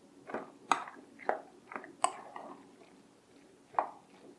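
A spoon stirring and folding a thick, wet mixture of roasted spaghetti squash strands, heavy cream, cheese and bacon in a bowl: a series of short squelching strokes, about six, irregularly spaced.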